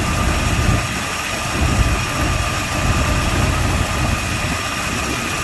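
Car engine idling steadily at a low idle of about 700 rpm.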